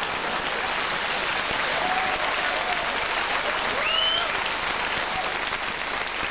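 Studio audience applauding steadily after a comedian's punchline.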